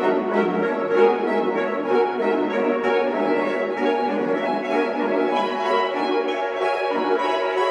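Saxophone ensemble, soprano through bass saxophones, playing contemporary classical music: dense sustained chords with quick repeated note attacks on top. The lowest voices drop out about seven seconds in.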